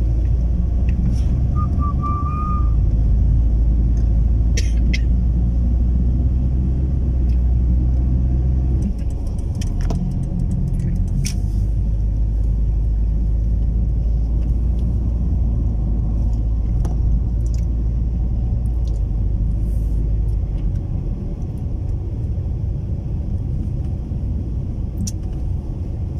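Car driving, heard from inside the cabin: a steady low rumble of engine and road noise that eases off a little about nine seconds in and again near twenty seconds.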